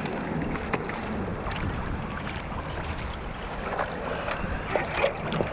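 Seawater lapping and splashing against surfboards close to the microphone, a steady wash with small scattered slaps, with wind blowing on the microphone.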